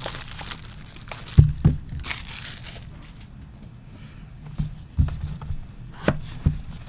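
Plastic shrink-wrap crinkling and tearing as it is stripped off a sealed trading-card box, with a few dull thumps of the cardboard box being handled and set down on the table.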